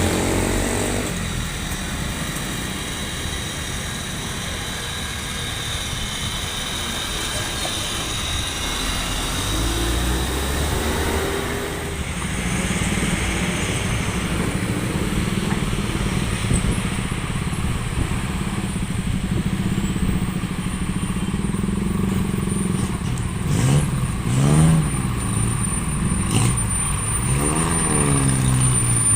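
Road traffic, heavy vehicles passing with a steady engine rumble throughout, and a wavering pitched sound twice near the end.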